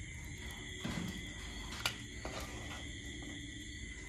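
A metal ladle clinks once sharply against steel cookware about two seconds in, with a softer knock about a second in, while curry is ladled from a kadai into a steel bowl. A steady high-pitched background drone sits underneath.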